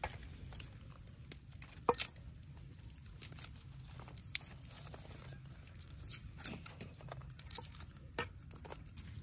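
Irregular sharp taps of a knife cutting through a green vegetable onto a wooden chopping board, the strongest about two seconds in, mixed with the papery crackle of garlic skins being peeled by hand.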